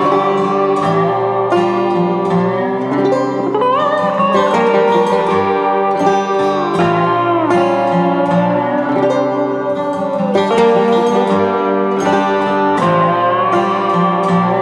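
Background music: plucked strings with sustained notes, several of which slide up or down in pitch.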